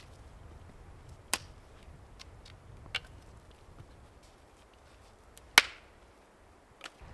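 Wood being chopped: three sharp strikes at uneven spacing, the third the loudest.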